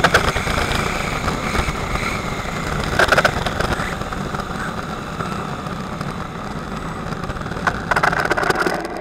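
Onboard sound of a HobbyKing HKM-390 1/8-scale RC racing motorbike at speed: a loud, steady rush of wind and road noise over a wavering motor whine. Crackling rattles come in about three seconds in and again near the end.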